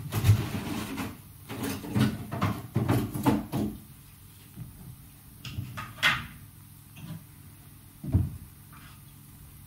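Kitchen clatter of a wine glass and ice being handled: a run of knocks and clinks in the first few seconds, a sharper clink about six seconds in, and a thump about eight seconds in.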